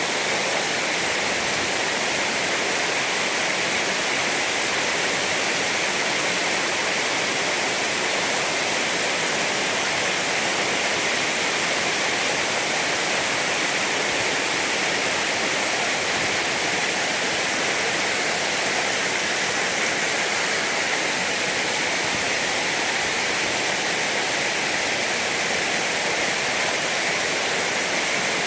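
Waterfall: water plunging down a steep drop, a steady, unbroken rush.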